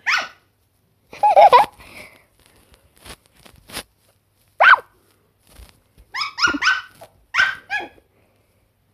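A Chihuahua puppy yapping: several short, high-pitched barks spread out with pauses between them, along with a few faint clicks.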